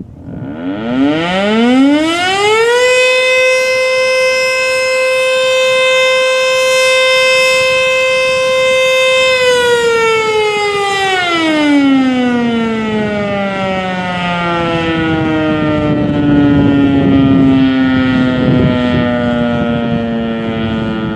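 ACA Screamer S-5 outdoor warning siren sounding a test: it winds up over about two seconds, holds one steady tone for about seven seconds, then winds down slowly. As it slows, the falling pitch splits into two tones.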